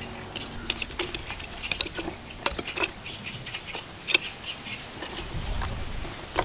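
Split wood sticks clicking and knocking against lumps of charcoal as they are laid in a small charcoal stove to start the fire, a run of light irregular clicks.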